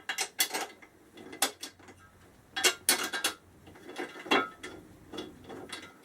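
Irregular metallic clinks and knocks of motorcycle luggage-rack parts and bolts being handled, with the sharpest cluster of knocks near the middle.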